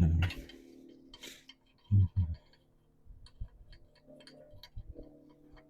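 Hand tools working on a car engine: a dull knock at the start and two more about two seconds in, then light, irregular metallic clicks and taps, over a faint steady hum.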